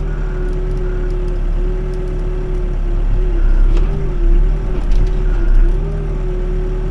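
Backhoe engine running steadily, its pitch dipping and swelling several times from about three seconds in as it takes load, with a faint knock or two of the bucket.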